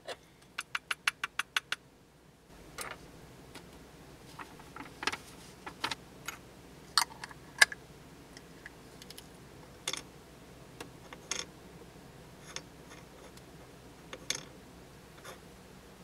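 A quick run of about eight taps about half a second in, then scattered clicks and clinks of a small glass jar and its lid being handled as gold dust is saved; the loudest is a sharp clink about seven and a half seconds in.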